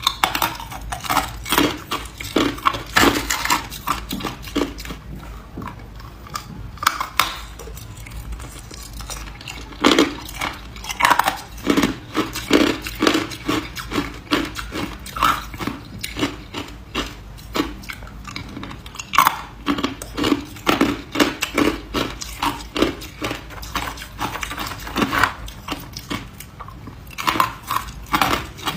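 Ice being bitten and chewed: dense, irregular cracking and crunching with no pauses longer than a moment.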